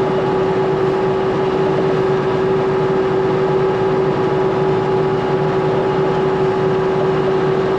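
Tractor running steadily while pulling a New Holland 644 round baler through hay, a constant drone with a steady whine.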